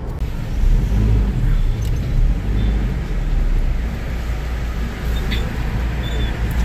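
Steady low rumble of a car's engine and tyres as it is driven, heard from inside the cabin.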